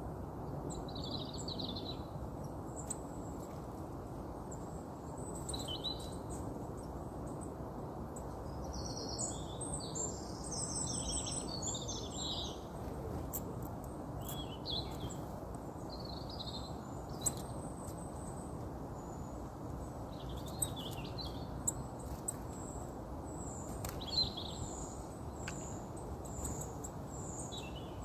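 Wild birds calling in short high chirps and twitters scattered throughout, busiest from about nine to thirteen seconds in, over a steady low background rumble. A few sharp clicks come in the second half.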